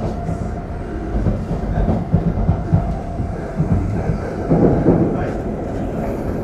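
Shinkansen train heard from inside the passenger car while running: a steady low rumble with irregular knocks from the wheels and track.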